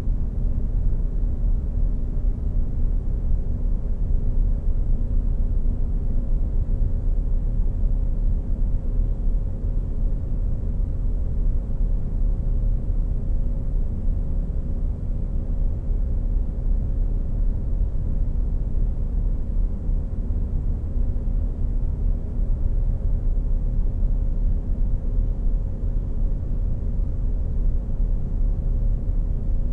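Steady low rumble with a faint, even hum above it, unchanging throughout.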